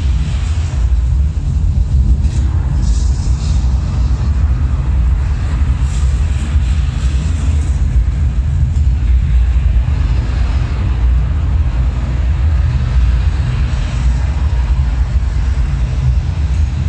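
Video installation's soundtrack: a loud, steady, deep rumbling drone, with a fainter hiss above it that swells and fades.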